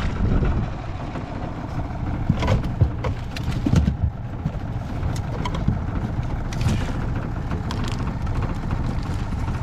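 Steady low rumble with scattered knocks and rattles as a crab pot full of mud crabs is handled on an aluminium boat deck, including a heavier thud about four seconds in.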